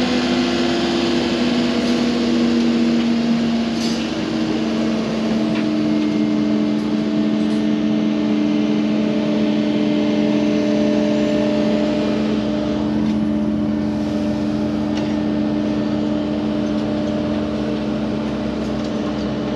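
Diesel engine of a compact tracked excavator running steadily under way, its hum shifting slightly in pitch a few times as it works.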